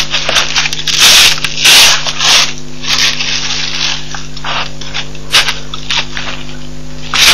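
Steady electrical hum on the webcam's audio line, broken by about half a dozen irregular bursts of rushing, crackling noise, the loudest about one and two seconds in.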